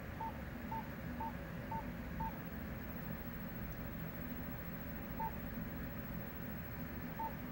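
Short, identical electronic beeps, evenly spaced twice a second, stop about two seconds in; two more single beeps follow later, over a steady low hum.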